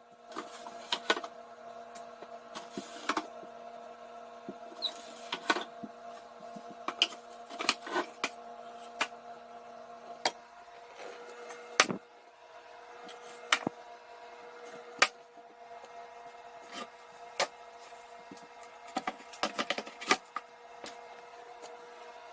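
Irregular wooden knocks and clacks from wooden table parts being handled, with a cluster of quick ones near the end, over a steady hum.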